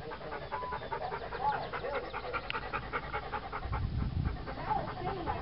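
A dog panting rapidly, in quick, even breaths.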